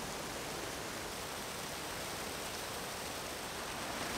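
Water pouring over a concrete spillway into a foaming pool below, a steady rushing that grows louder near the end.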